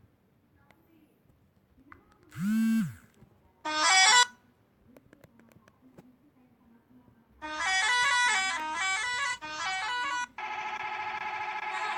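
An Indonesian bus 'telolet' horn, a multi-tone musical air horn, sounding. First come two short blasts, the first gliding up and back down in pitch. About seven seconds in it plays a quick tune of changing notes in three short phrases, then holds a long steady chord.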